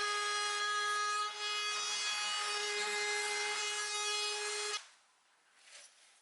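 An electric power tool working on wood, its motor running with a steady whine and a rubbing, scraping sound, switched off suddenly about three-quarters of the way through. Faint knocks of handling follow.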